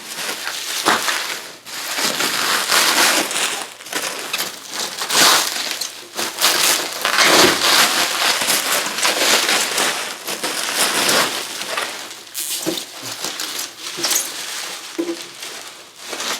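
Packaging being handled and pulled apart, with loud, irregular crinkling and crunching throughout.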